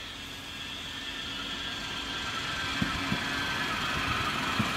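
A K5000 Stadtbahn light-rail car approaching on the track: steady rolling noise of wheels on rails, growing louder, with a few sharp knocks in the second half.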